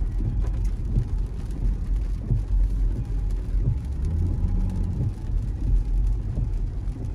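A car driving on a wet road, heard from inside the cabin: a steady low rumble of engine and road noise.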